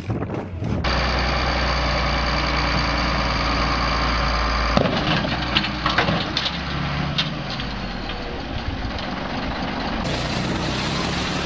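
Tractor engines running across a few short back-to-back clips: first a steady engine drone, then engine noise with several sharp knocks and clatters after about five seconds, and near the end the sound of a ride-on lawn tractor.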